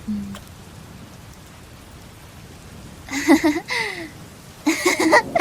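Close-mic kissing noises: a soft smack at the start, then from about three seconds in two quick runs of wet lip smacks mixed with small falling hums. Underneath runs a steady rain ambience.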